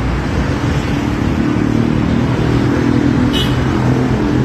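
Road traffic: a motor vehicle's engine running close by and growing louder over a steady traffic rumble, with a short sharp click about three seconds in.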